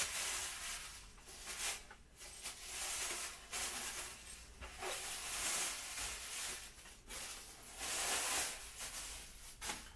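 Packaging rustling in repeated swells as a hood panel for an RC truck body is unwrapped by hand, with a few light clicks.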